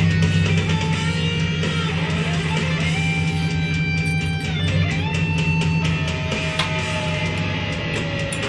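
Background music on guitar: held notes that slide in pitch, with a long falling note near the end, over a steady low bass.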